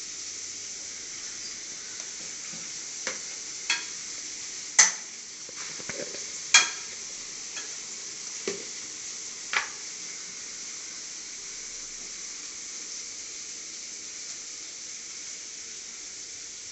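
Shredded cabbage frying in a pan with a steady high sizzle, and a stirring utensil knocking against the pan about six times in the first ten seconds, the two loudest knocks near the middle.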